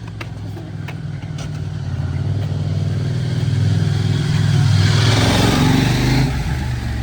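A motor vehicle's engine passing close by on the street. It grows louder to a peak about five to six seconds in, then eases off.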